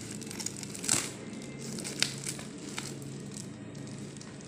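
Plastic parcel wrapping crinkling as it is handled and pulled open, with sharp crackles, the loudest about one second and two seconds in.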